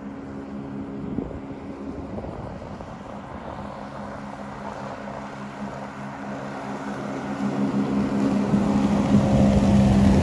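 Motorboat engine running at a steady drone, growing louder over the last few seconds as the boat passes by.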